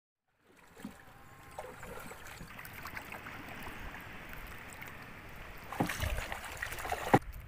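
Water sloshing and lapping around a small wooden outrigger canoe being paddled, with two sharp knocks near the end.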